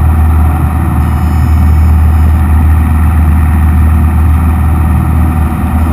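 Cessna 172M's four-cylinder Lycoming engine and propeller droning steadily, heard from inside the cabin.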